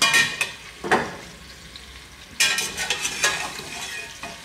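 Long metal skimmer stirring potato chunks and leek in a stainless-steel stockpot, scraping and knocking against the pot in short bursts, the longest about halfway through. The leek sizzles gently in the oil between the bursts.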